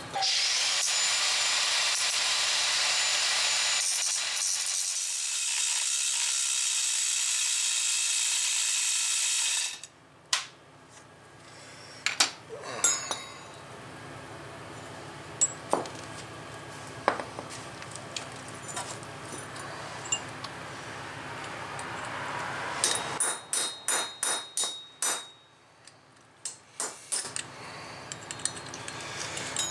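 Cordless angle grinder running for about ten seconds, grinding on metal, then cutting off abruptly; it is working the old bearing race off the front wheel hub. Scattered metal clinks of tools being handled follow, then a quick run of hammer taps on metal a little over twenty seconds in.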